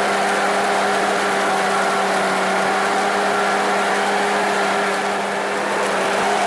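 A machine's motor running steadily with a constant hum.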